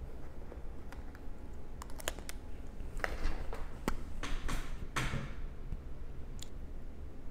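A scattering of small, irregular clicks and taps, thickest in the middle, with a brief rustle about five seconds in, over a steady low room hum.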